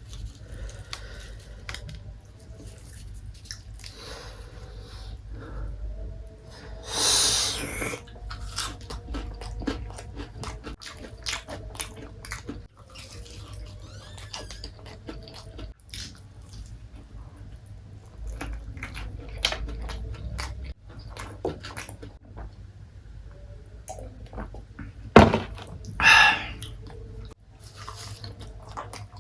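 Close-miked chewing and crunching of KFC fried chicken, with wet mouth clicks. There is a louder, hissy crunch-like burst about seven seconds in, and two more loud bursts near the end.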